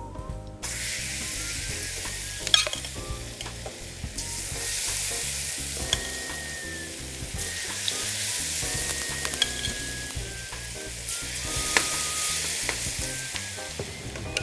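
Ackee fritter batter frying in hot vegetable oil in a pan: a steady sizzle that starts abruptly about half a second in and swells and eases a few times, with a few light clicks.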